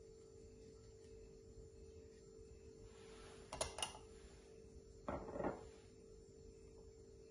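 Faint steady room hum, broken by two quick knocks about three and a half seconds in and a short scrape a second and a half later: small glass dessert bowls being set down and shifted on the countertop.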